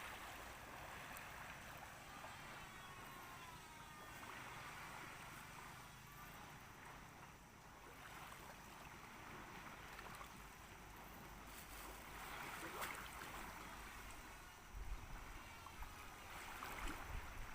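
Faint, steady wash of moving water along the shore, with a few low bumps near the end.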